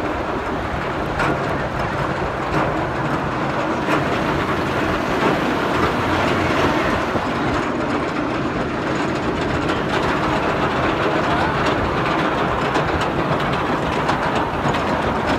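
Roller coaster car climbing a chain lift hill, the lift chain clattering steadily under the train.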